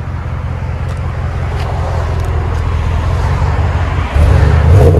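2020 Ram 1500's 5.7-litre Hemi V8 idling through a dual exhaust with a Flowmaster 40 Series muffler and resonators, heard at the tailpipe. About four seconds in it gets suddenly louder and the revs begin to climb.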